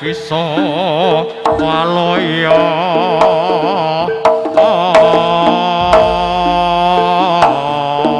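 Live jaranan gamelan music: a high melody with heavy, wavering vibrato held over sharp drum strokes.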